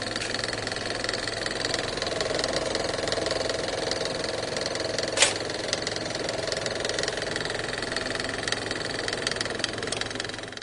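A steady droning hum with hiss and faint crackle, and one sharp click about five seconds in. It cuts off abruptly at the end.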